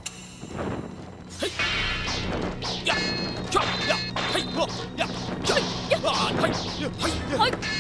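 Sword-fight sound effects: blades swishing through the air and clashing with ringing metallic clangs, and blows landing, in quick succession from about a second and a half in. Background music plays underneath.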